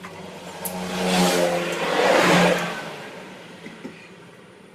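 A motor vehicle's engine passing by, swelling to a peak about two seconds in and then fading away.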